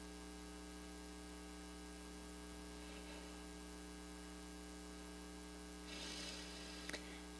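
Steady electrical mains hum on the recording under quiet room tone, with a faint short noise about six seconds in and a small click near the end.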